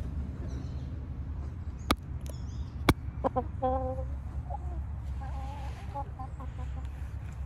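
Hens clucking: a quick run of short clucks about three seconds in, then a longer drawn-out call and scattered shorter clucks. Just before, two sharp clicks a second apart are the loudest sounds, over a steady low rumble.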